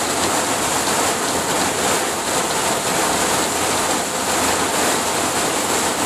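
Heavy downpour hitting the roof and windshield of a moving van, heard from inside the cabin as a loud, steady hiss mixed with the noise of tyres on the soaked road.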